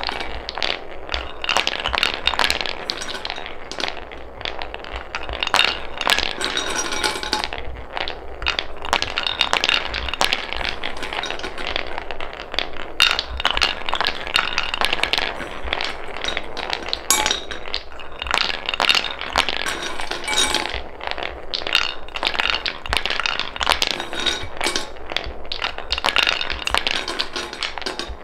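Wooden balls rolling along the grooves of a wooden spiral marble track, clacking against one another as each one runs up against the line of balls already resting there. It is a continuous rolling rumble with frequent clicks.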